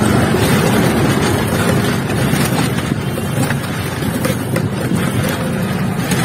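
Steady street traffic noise heard from a moving rickshaw, with wind on the microphone.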